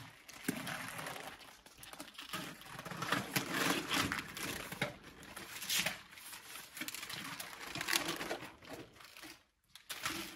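Slats of a rolled-up roller shutter rattling and scraping as it is handled and lowered to the ground: irregular rustling clatters with sharp clicks, dropping away briefly near the end.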